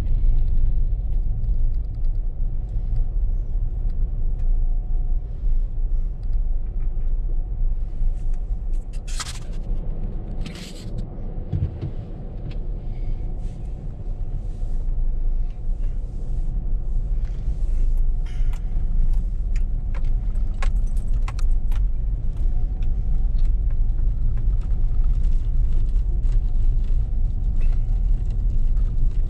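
Car on the move, a steady low engine and road rumble with a few short rattles and clicks.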